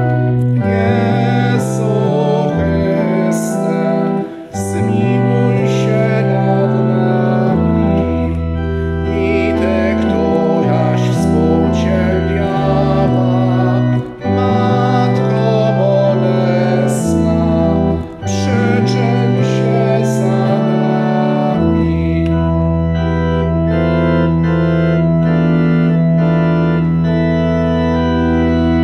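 Church organ playing hymn chords under singing, with brief breaks between phrases. The singing stops about three-quarters of the way through and the organ holds one long chord.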